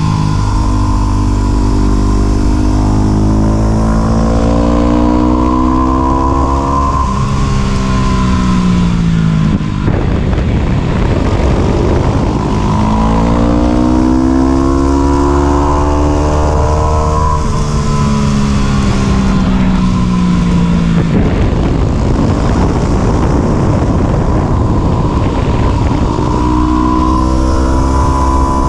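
Yamaha WR250 supermoto motorcycle engine being ridden: the revs climb, drop back, climb and drop again, hold low for a few seconds, then climb once more near the end.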